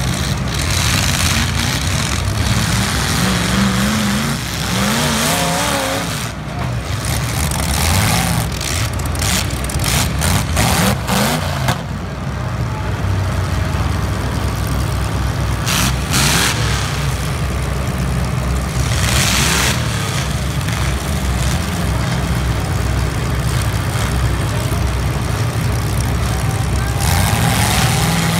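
Several demolition derby cars' engines running and revving hard, rising and falling in pitch, with sharp knocks of car bodies colliding between about eight and twelve seconds in.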